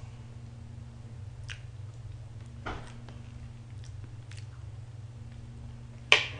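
Plastic cake knife cutting into a fresh-cream cake and scraping on the cake board: a few soft scrapes and clicks over a steady low hum, with one sharp click near the end.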